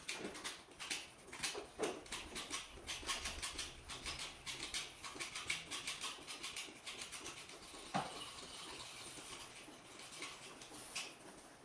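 Hand ratchet wrench clicking in quick runs as a bolt on a BMW N46 engine's cylinder head is turned, with one sharper metal knock about eight seconds in.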